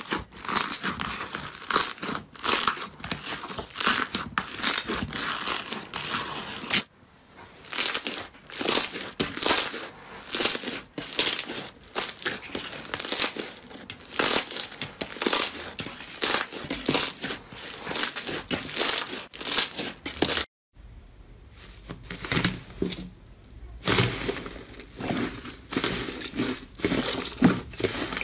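Slime being squeezed, pressed and stretched by hand, with quick irregular crackling and squelching. The sound drops out briefly twice, about seven seconds in and about twenty seconds in.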